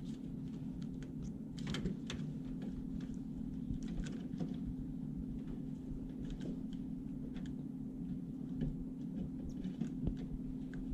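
Scattered light clicks and taps of hands working on oven wiring connectors and metal parts, over a steady low hum.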